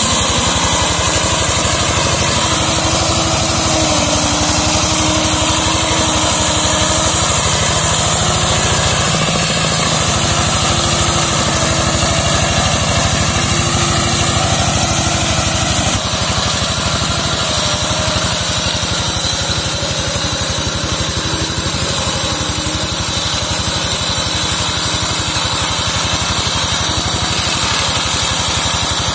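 Small engine of a walk-behind brush mower running steadily under load as it cuts through undergrowth, its note wavering slightly.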